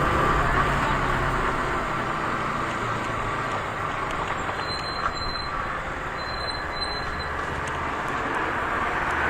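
KTM RC 125's single-cylinder engine running under heavy wind rush while riding, the engine note dropping away after about two seconds as it eases off, then picking up again near the end. Twice in the middle come brief pairs of high-pitched squeals.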